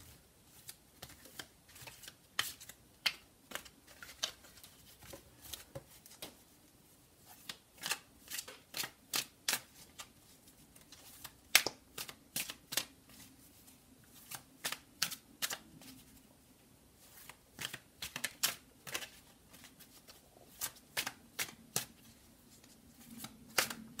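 A deck of tarot cards shuffled by hand, overhand style, the cards falling from hand to hand in a light, quick patter of clicks and snaps that come in irregular runs of several a second.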